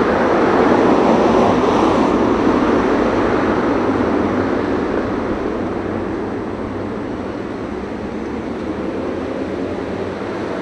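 Car driving along a city street, heard from inside the cabin through a dashcam: steady engine and road noise, easing off a little past the middle.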